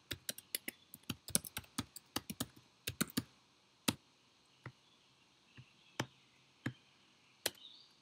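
Typing on a computer keyboard: a quick run of keystrokes for about three seconds, then a few single clicks spaced about a second apart.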